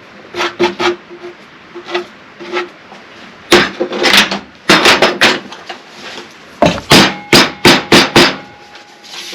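Irregular sharp knocks and taps on a 3-inch PVC pipe while a slot is cut out of it, ending in a quick run of about six hard strikes.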